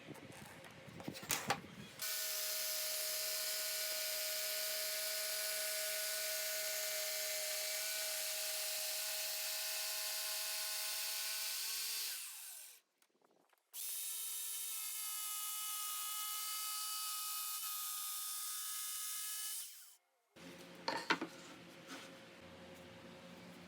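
Electric woodworking power tool running steadily with a high whine and hiss, in two runs of about ten and six seconds; the first winds down and the second stops abruptly. Brief knocks of handling come before and after the runs.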